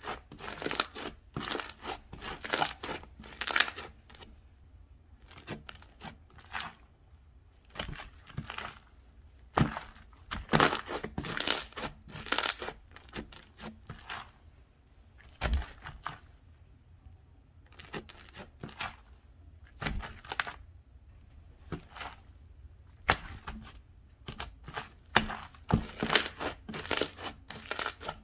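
Slime being squished, pressed and stretched by hand, giving irregular clusters of crackling and tearing sounds with short quiet gaps between.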